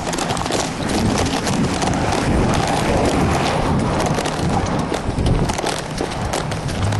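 Footsteps on pavement, irregular knocks under a steady rushing noise.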